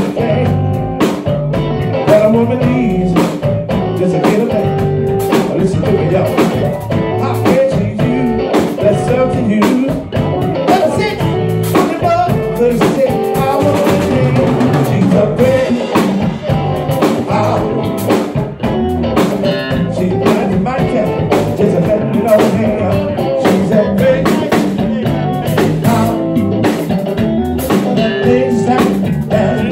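Live band playing: drum kit keeping a steady beat under electric guitars, with a man singing into the microphone.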